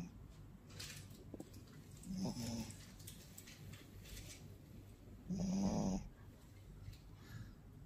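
A person snoring heavily: two snores about three seconds apart, the second louder and longer. The uploader presents this heavy snoring as a COVID-19 symptom, alongside shortness of breath.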